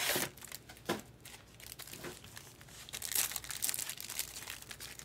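Foil trading-card packs crinkling in the hands as they are lifted out of the box and handled, in irregular bursts that get busier over the last couple of seconds.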